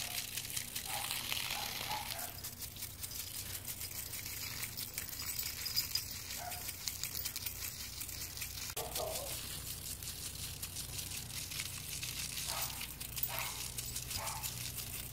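Garden hose spraying water onto a lawn, a steady crackling hiss of splashing water, as a wheaten terrier puppy snaps and splashes at the stream. A few short, brief noises stand out here and there.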